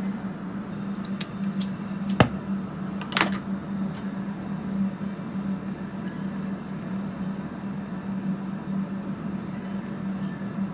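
Steady drone of the fume-extraction fans running during soldering, with a low hum under it. A few small clicks early on, a sharp knock about two seconds in, and a short metallic clink about three seconds in.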